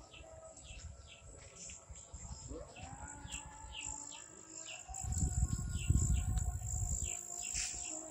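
Birds chirping over and over in short falling notes, about two a second, over a steady high insect drone. A low rumble on the microphone comes in about five seconds in and is briefly the loudest sound.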